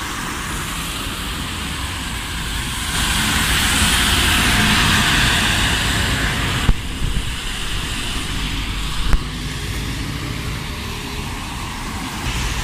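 Road traffic on a wet road: double-decker buses and cars driving past, their tyres hissing on the wet surface over a steady engine rumble. A louder swell of hiss comes as a vehicle passes about three to seven seconds in, and two short sharp knocks follow a little later.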